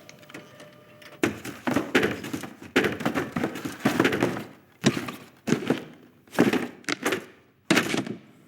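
A series of about ten heavy thunks and clattering knocks, irregularly spaced, starting about a second in.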